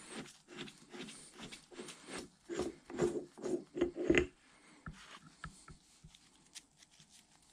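The steel nose piece being twisted off its threads on a Bridgeport milling machine quill by hand, with the quill rubbing on rags and the wooden workbench. A quick run of short rubbing strokes, two or three a second, lasts about four seconds, then only faint clicks of handling.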